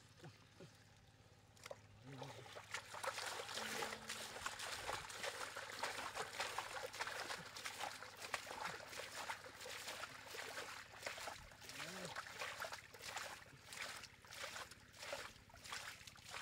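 Muddy water splashing as it is scooped and thrown by hand out of a drained canal bed. It starts about two seconds in as a busy run of sloshing, and near the end settles into even splashes about two a second.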